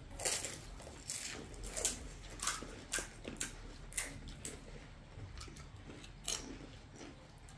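Crisp panipuri shells crunching as they are bitten and chewed: a quick, irregular run of short crunches through the first four seconds, then one more a little after six seconds.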